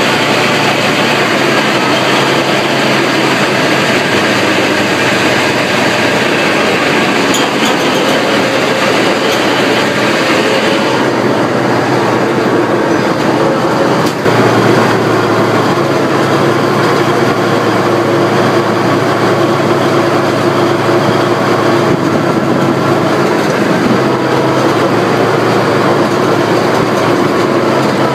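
Tank driving along a dirt track, its engine and tracks running with a steady clattering drone, heard close up from on top of the hull.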